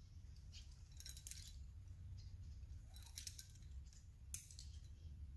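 Faint metallic jingling of climbing hardware, carabiners and quickdraws clinking, in three short clusters about a second, three seconds and four seconds in, over a low steady rumble.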